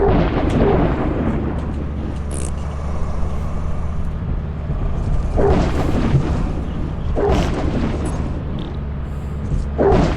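Steady low rumble, with a few short louder bursts about five and a half, seven and ten seconds in.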